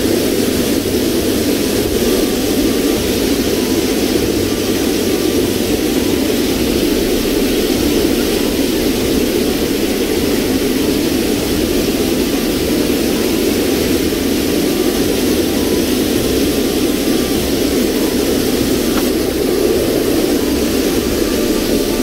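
Steady roar of white water rushing over boulders in river rapids, an unbroken rushing noise.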